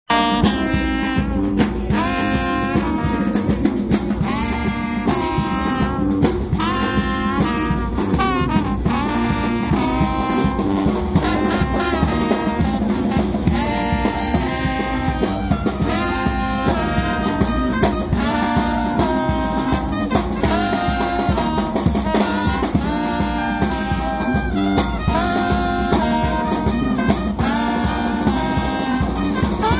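A New Orleans brass band playing: trombones, trumpets and a sousaphone blowing repeated riffs over a steady bass drum and cymbal beat.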